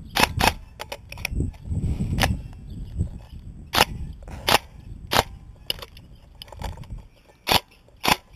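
PTW-style airsoft electric M4 replica firing single shots on semi-auto, about ten sharp cracks at uneven intervals. The replica is feeding erratically and fires only when it wants to, which the owner cannot yet explain.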